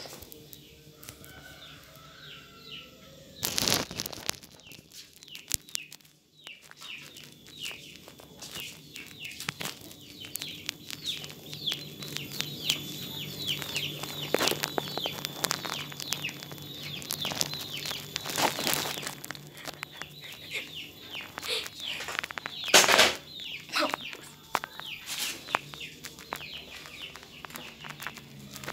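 Birds chirping busily, many short falling chirps a second, with a few loud knocks and rustles from the phone being carried along.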